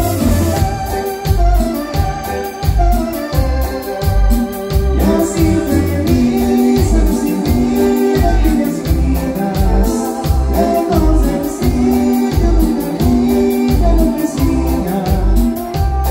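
Live cumbia band's instrumental break: an organ-voiced keyboard carries the melody over electric bass, electric guitar and a steady drum beat.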